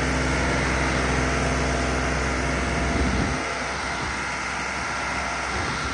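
New Holland 3630 tractor's three-cylinder diesel running hard while driving through loose, dusty soil, a steady engine drone. About three seconds in the deep low note drops away, leaving a thinner, rougher running sound.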